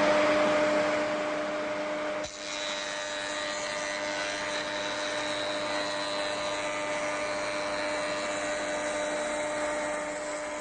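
Jointer driven by a Shopsmith Mark V, running at speed with a steady whine while it takes a shallow rabbet pass along a cabinet door edge. The running sound is loudest at the start and drops briefly about two seconds in, then carries on steadily.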